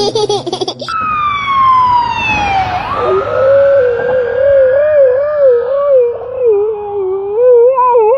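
A dog howling: a long, wavering wail that rises and falls in pitch, preceded by a tone that slides steadily downward for about two seconds. A short burst of music is heard at the very start.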